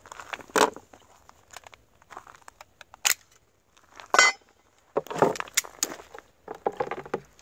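Type 3 AK-47 with a milled steel receiver being field-stripped by hand: scattered sharp metal clicks and clacks as its parts are worked loose, with a busier patch of clatter about five seconds in.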